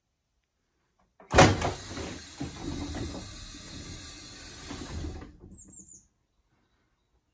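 Passenger doors of a Pacer railbus opening: a sudden loud clunk about a second in, then about four seconds of steady mechanical running noise from the door gear, which stops about five seconds in.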